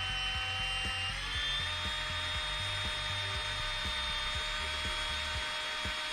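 Electric drill running steadily while drilling a hole, its whine stepping up in pitch about a second in and then holding. Background music with a steady beat plays underneath.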